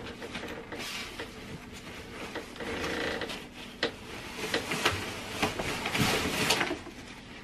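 Packaging rustling and scraping as bassinet parts are pulled out of their box, with a few sharp knocks of the pieces against each other.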